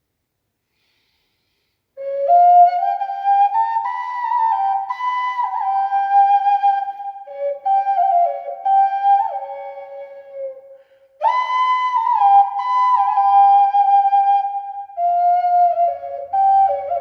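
A ceramic (fired clay) whistle blown in short melodic phrases, stepping between a handful of clear, fairly high notes. It starts about two seconds in, fades briefly about nine seconds in, then comes back loud and carries on.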